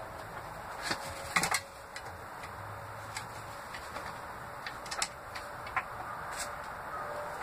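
Backyard hens moving about on wooden roosts in a coop: a few sharp knocks and scuffs, the loudest a quick pair about a second and a half in as a hen lands on a perch, then lighter ticks.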